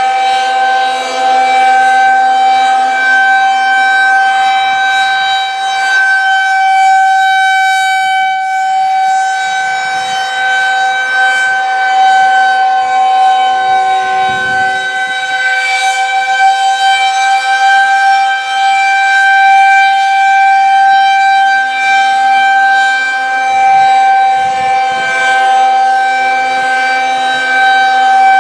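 Federal Signal 2001-130 rotating outdoor warning siren sounding a steady, unwavering tone, the Alert signal. Its loudness swells and fades every few seconds as the head turns.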